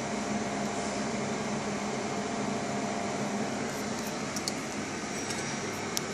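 Steady whir of a laser marking machine's cooling fan, with an even low hum and a few faint high clicks in the second half.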